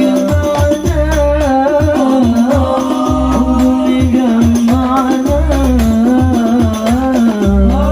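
Sholawat (Islamic devotional song): a male solo voice sings long, ornamented, gliding phrases over hadroh frame-drum percussion with a steady low drum pulse.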